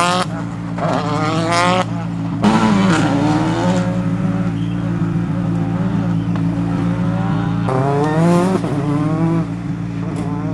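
Rally car engine revving hard, its pitch climbing in short runs that break off at each gear change, with a steady low engine drone underneath throughout.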